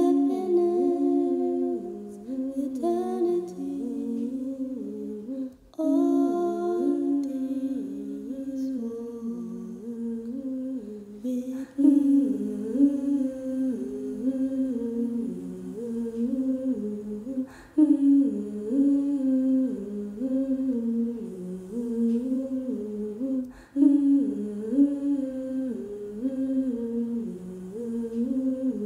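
Soundtrack music of wordless humming: a hummed melody whose short phrase repeats, starting over about every six seconds.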